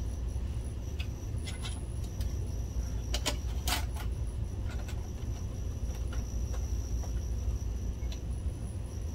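Light clicks and taps of a projector's main circuit board and its connector panel knocking against the metal chassis as it is fitted: a few scattered ones, then a short cluster about three to four seconds in. A steady low rumble runs underneath.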